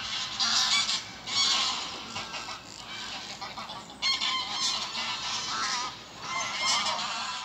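Birds calling, many overlapping calls in loud spells, with a quieter lull in the middle and another burst about four seconds in.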